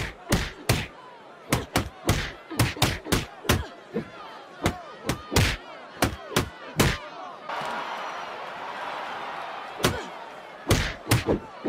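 Cartoon boxing-glove punch sound effects landing in a rapid flurry, more than a dozen sharp hits over several seconds. A spell of steady rushing noise follows, then a few more quick punches near the end.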